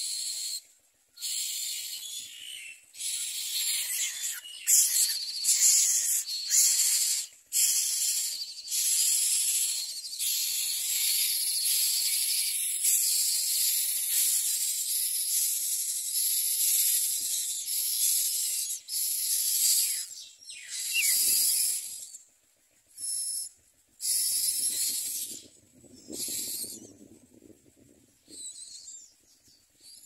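Common myna nestlings begging for food: harsh, hissing rasps, nearly unbroken for the first two-thirds, then in short separate bursts as an adult arrives to feed them.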